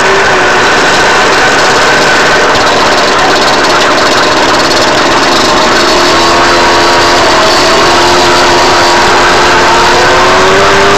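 Go-Ped GSR25 stand-up scooter's small two-stroke engine with a new exhaust pipe, running loud under the rider. Its pitch drops at the start as it slows, holds low and steady through the middle, and rises again near the end as it picks up speed.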